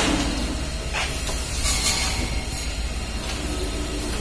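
Pressure hose spraying disinfectant: a steady hiss over the low drone of the pump feeding it, with a couple of brief louder gushes of spray about one and two seconds in.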